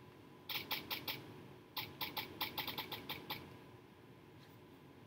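Light, quick clicks or taps in two runs: about four, then after a short pause about ten more, roughly four a second.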